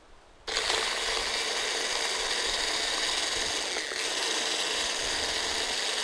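Electric immersion blender switched on about half a second in, its motor running steadily as it whips cream in a tall beaker.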